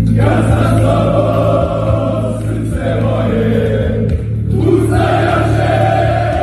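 A group of men singing a chant together in unison, in long held phrases with short breaks between them.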